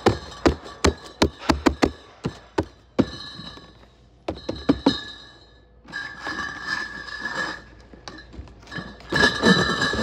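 Cardboard beer cases being handled on a pallet stack: a quick run of sharp taps and knocks, then cases pushed and slid across the cardboard tops with a scraping sound, twice.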